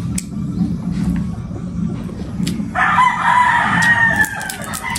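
A rooster crows once about halfway through, a single drawn-out call of about a second and a half that falls away at the end; it is the loudest sound. Under it are light scattered clicks of crab shell being picked apart and a low steady hum.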